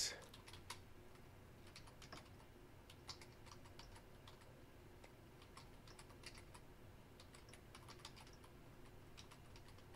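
Faint typing on a computer keyboard: irregular keystrokes in short runs.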